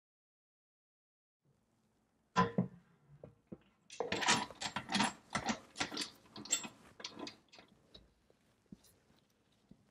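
Metal lid and clamp knobs of a Superclear epoxy resin pressure pot being handled and fitted by gloved hands: a sharp clank about two and a half seconds in, then a quick run of clicks and clanks that thins to a few faint ticks.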